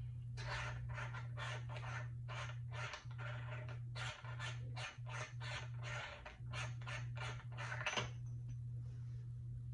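Hands scraping and fiddling with a camera on a tripod mount in quick, irregular strokes, ending in a sharp click about eight seconds in. A steady low hum runs underneath.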